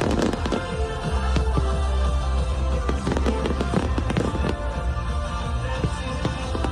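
Fireworks going off in rapid succession, many sharp bangs and crackles, over loud show music with a deep, steady bass.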